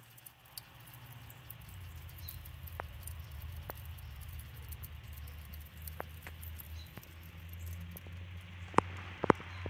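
Wood and charcoal fire crackling with scattered sharp pops over a low steady rumble; the two loudest pops come near the end.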